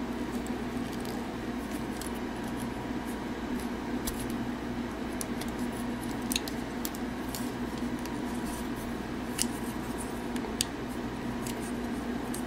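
Small plastic clicks and ticks as the jointed parts of a 52Toys BeastBox BB-38 Gunpowder transforming figure are folded and the leg tabs worked toward their slots, with a few sharper clicks near the end. A steady low hum lies under it.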